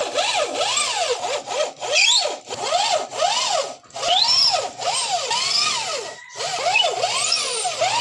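Corded electric drill working the screws of a wooden speaker cabinet's front panel. Its motor whine rises and falls in quick trigger pulses, about two a second, with a few brief pauses between screws.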